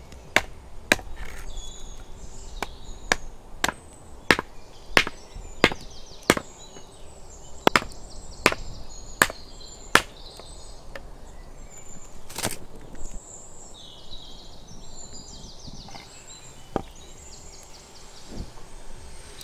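Hatchet chopping a branch on a wooden stump chopping block: a steady run of sharp strikes, roughly one every half to two-thirds of a second, for about the first ten seconds, then a single strike a couple of seconds later. Faint high chirping in the background once the chopping stops.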